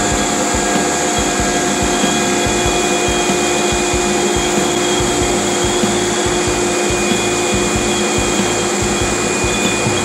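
CNC router spindle running steadily with its dust collection, a steady whine over an even rushing noise.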